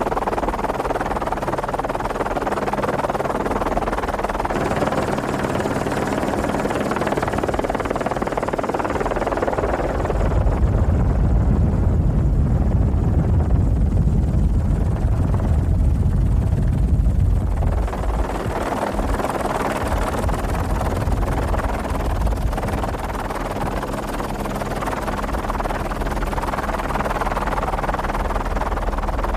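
Steady helicopter engine and rotor noise. From about ten seconds in, heavy low wind rumble on the microphone covers it for some eight seconds.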